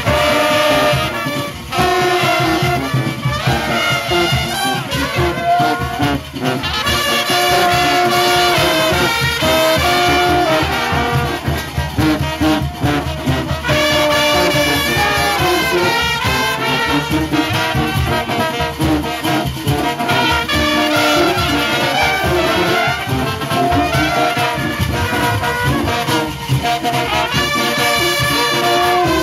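Junkanoo street band playing: trumpets, trombones and baritone horns carry a loud melody in held and stepping notes over a steady beat of drums.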